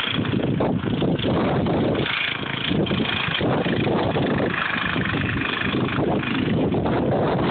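Snow blower engine running steadily under load.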